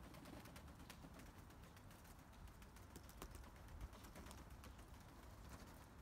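Near silence: faint outdoor ambience with a low rumble and scattered light ticks and taps.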